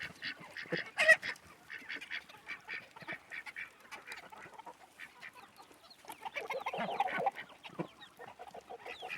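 Backyard poultry flock calling as it comes running for food: many short overlapping clucks and honking calls, the loudest about a second in and a busier stretch near the end.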